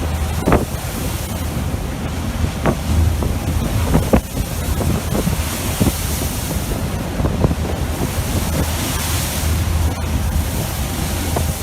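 Storm wind blasting across the microphone and heavy seas washing around a fishing boat, over a steady low rumble, with scattered short knocks and splashes.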